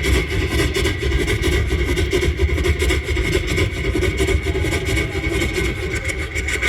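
A man imitating a train with his mouth as it picks up speed on the main line: a fast, steady, rhythmic clatter of wheels running on the track.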